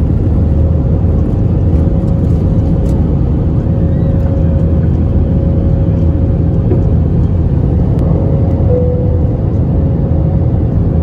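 Jet airliner's engines at takeoff power heard from inside the cabin: a loud, steady rumble through the takeoff roll and lift-off.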